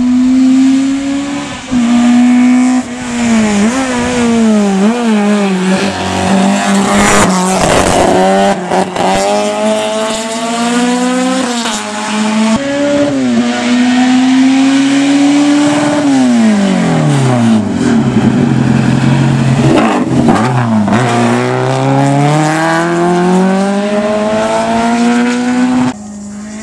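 Race car engine at full throttle, its pitch climbing and dropping at each gearshift. Around two thirds of the way through the revs fall away low, as for a corner, then build back up through the gears. The sound cuts off sharply near the end.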